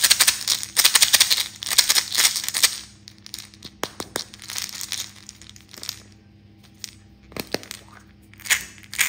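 Hollow plastic toy ball handled and twisted in the hands: dense crackling and scratching for the first three seconds, then scattered sharp clicks, and two more crackling bursts near the end.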